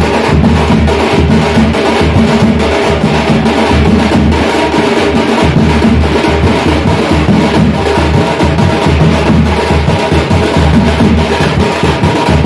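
Tamil village folk band's thappu (parai) frame drums beaten with sticks in a fast, dense, unbroken rhythm, loud and steady.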